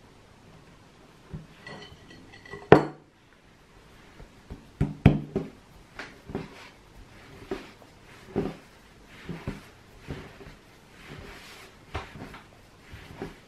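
Homemade pasta dough kneaded by hand on a floured wooden tabletop: soft thumps and pats about once a second as the dough is pushed and folded. A sharp, loud knock on the wood comes a little under three seconds in, just after a brief ringing tone.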